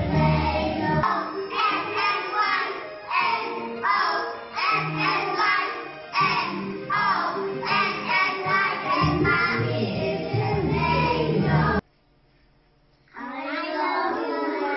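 Group of young children singing a song together in unison. The sound cuts off suddenly about twelve seconds in, and after a second of near silence the children's voices start again.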